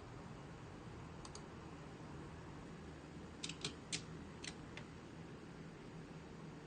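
Faint steady electrical buzz from an NVIDIA GeForce RTX 3090 Founders Edition graphics card: the card's current noise, which the owner finds grows more noticeable at higher frame rates. Two sharp clicks come about a second in, and a quick run of five clicks between three and five seconds in.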